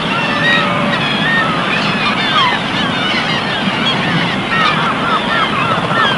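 A chorus of many small birds chirping and whistling, short rising and falling notes overlapping densely, over a steady rushing noise.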